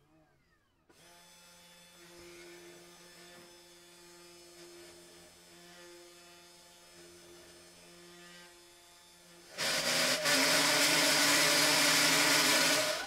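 Small spindle motor of a 3018 desktop CNC router running with a steady hum. About ten seconds in, a much louder, rough cutting noise starts as the 3 mm bit bites into the wood, and it cuts off suddenly. The owner says the cut didn't sound good as soon as the bit hit and that the 3 mm bit at that feed rate was overloading the machine.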